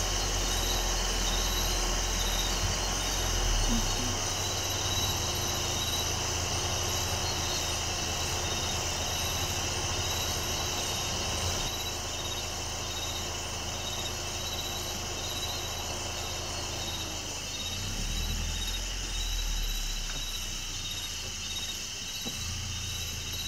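Night chorus of crickets and other insects, a steady high shrill with pulsing trills, over the low hum of an idling vehicle engine whose note drops about two-thirds of the way through.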